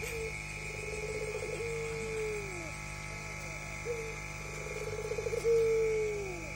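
Puter pelung dove cooing: two phrases, each a rolling trilled coo ending in a long, drawn-out note that falls in pitch.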